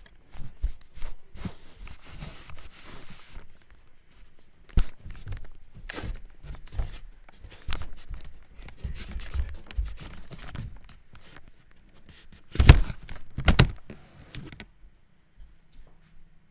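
Handling noise from the recording device as it is carried by hand: rubbing, scuffs, bumps and footsteps. Two loud knocks come about 13 seconds in as it is set down, then it goes quiet.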